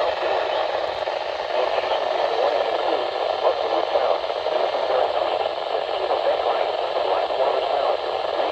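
Steady hiss of radio static from a weather radio receiver, with no clear voice coming through.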